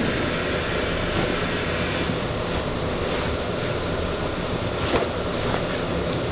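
Steady machinery noise in a confectionery factory, with a few short knocks and rustles as a heavy canvas sack is shifted on a steel worktable; the sharpest knock comes about five seconds in.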